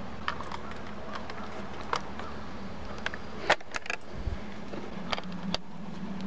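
Scattered clicks and taps of hands and a screwdriver handling a laptop's plastic underside, with a louder plastic clack about three and a half seconds in as an access cover is lifted off. A steady low hum runs underneath.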